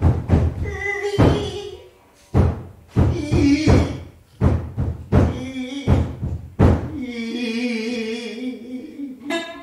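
A gidayū-bushi chanter (tayū) intoning the jōruri narration in a wavering, drawn-out voice, punctuated by sharp plucks of a futozao shamisen. About seven seconds in the voice holds one long wavering note.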